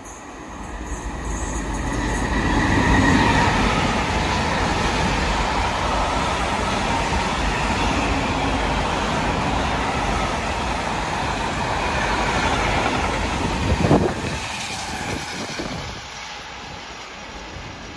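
Intermodal freight train of truck trailers on pocket wagons passing through a station: a steady rumble and rattle of wheels on rails, building up over the first few seconds. There is one sharp clank about fourteen seconds in, and the sound dies down near the end as the last wagons pass.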